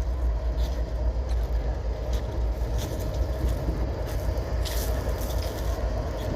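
Diesel-electric freight locomotive's engine idling, a steady low rumble, with a few light clicks over it and the clearest one about three-quarters of the way through.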